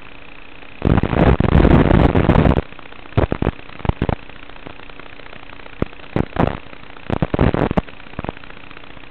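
Crackling bursts of static over a steady hiss and hum on an analog FPV video link's audio channel: one long loud burst about a second in, then scattered clusters of short sharp crackles.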